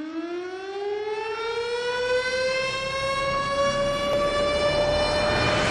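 Air-raid-style siren sound opening a music track, a single wailing tone winding slowly up in pitch and levelling off as it grows louder.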